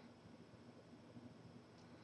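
Near silence: faint room tone with a steady low hum and a faint tick near the end.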